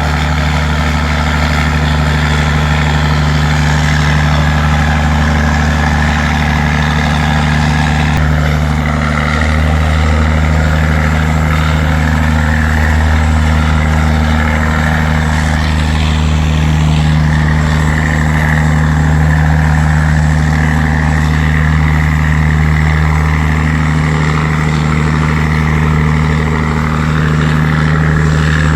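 Wooden river tugboat's diesel engine running steadily under way, a loud, even low hum that does not change.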